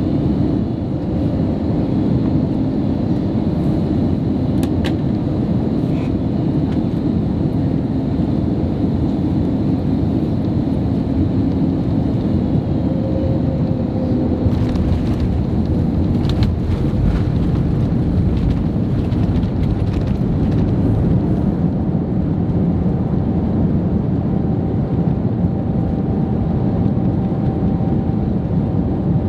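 Steady rumble of an Airbus A321neo's engines and airflow heard inside the economy cabin, with a faint hum under it and a few light rattles and ticks around the middle.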